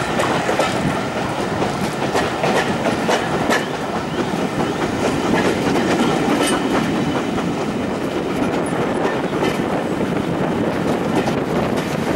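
Passenger carriage of a steam-hauled heritage train running along the line: a steady rumble of wheels on track, with irregular clicks as the wheels pass over the rail joints.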